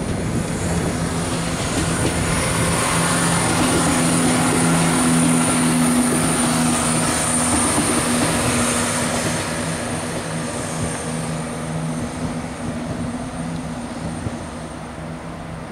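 Class 170 Turbostar diesel multiple unit passing, its diesel engines running with a steady low hum over the rumble of wheels on rail. The sound is loudest about midway, then fades as the train draws away.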